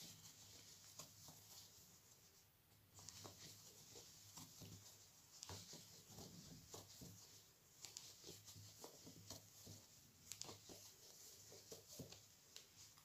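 Faint rustling and light, irregular ticks of a crochet hook pulling velvet yarn through stitch after stitch, with a brief lull about two seconds in.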